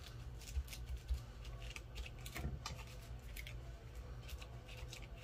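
Paper being handled on a work surface: irregular rustling, crinkling and small taps as glued paper and a doily are pressed and smoothed by hand, over a steady low hum.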